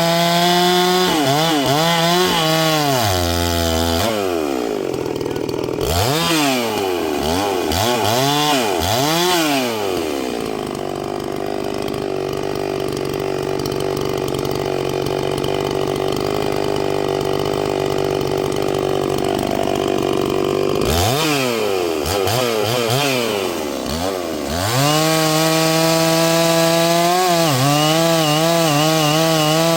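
Two-stroke gas chainsaw cutting black oak. It runs at high revs, its pitch swinging down and back up several times, then is pulled lower and held there for about ten seconds in the middle of the cut before climbing back to full revs.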